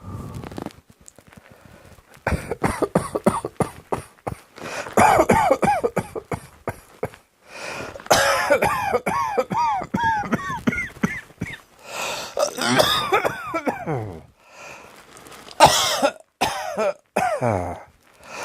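A person coughing in about five fits of rapid coughs with short pauses between them. Some of the coughs are voiced and rise and fall in pitch.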